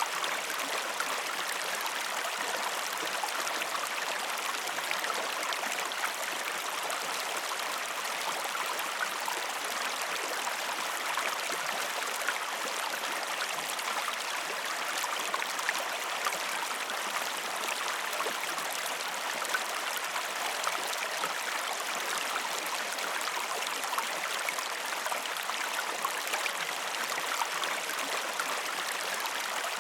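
Waterfall and the stream below it, an even steady rush of falling water flecked with small splashes.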